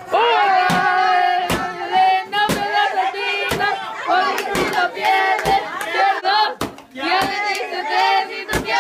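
A group of people singing together in long, held notes while a stick thumps against a papier-mâché piñata, about one hit a second.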